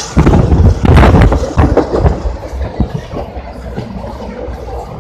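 Passenger train coach running on the rails, heard from inside: a heavy rumble with clattering knocks that eases to a quieter, steady rumble about halfway through.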